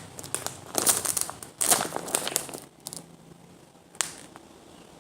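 Plastic packaging crinkling as a squishy toy is squeezed and handled inside its bag, in several bursts through the first half, then quieter with a single sharp click about four seconds in.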